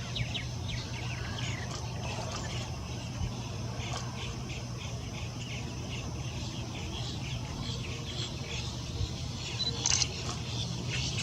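Many birds chirping and calling, short overlapping notes, with a louder call near the end, over a steady low hum.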